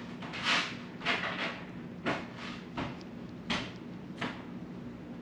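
Short scraping and clicking handling sounds, about seven in a row, as small parts of a Shimano Chronarch baitcasting reel are handled and fitted, over a steady low hum.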